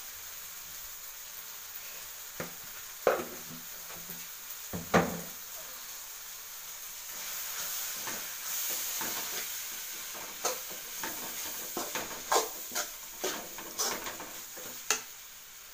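A steel spoon scrapes and knocks against an aluminium kadai while goat intestine fry is stirred, over a steady sizzle of frying. The sharpest knocks come about three and five seconds in, the sizzle swells in the middle, and a run of quicker scrapes and taps follows near the end.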